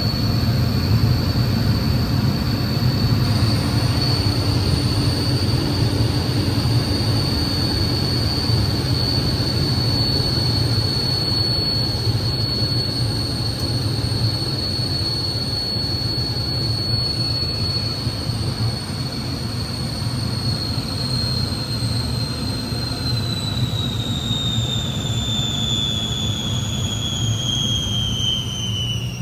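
Twin Turbomeca Marboré turbojets of a Morane-Saulnier MS.760 Paris, heard from inside the cockpit: a steady high whine over a low rumble. About 23 seconds in, the whine starts falling steadily in pitch as the engines spool down, power coming off for the landing.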